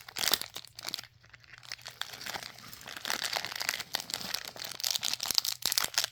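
Mystery trading-pin pack wrapper being crinkled and torn open by hand, a dense run of crackling with a thinner stretch about a second in.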